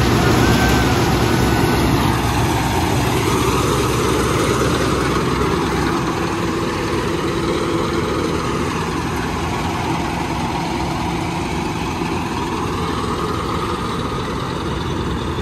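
Kartar 4000 Crop Cruiser combine harvester running steadily at close range, its engine and threshing machinery working as it harvests paddy.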